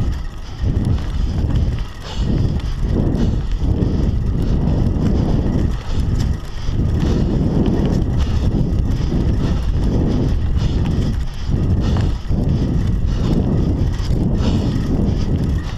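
Scott Scale 960 hardtail mountain bike ridden along a dirt forest singletrack: a steady low rumble of wind buffeting the action camera's microphone and tyres on the trail, with irregular knocks and rattles from the bike. The rumble swells and dips briefly a few times.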